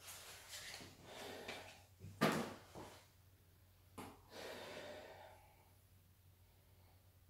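Rustling of plastic packaging wrap being handled, with a single sharp knock about two seconds in and a click followed by more rustling about four seconds in.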